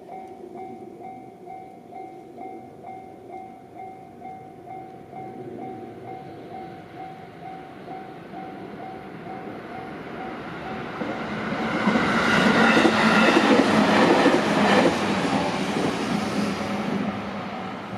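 Japanese level-crossing alarm ringing in an even, repeating ding throughout. A train swells in, runs loudest over the crossing about twelve to fifteen seconds in with wheel and rail noise, then fades away while the alarm keeps ringing.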